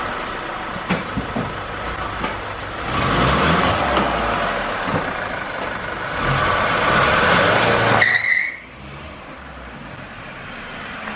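Volkswagen Amarok pickup being driven: engine and road noise swell twice as it accelerates, then drop off sharply near the end with a brief high chirp.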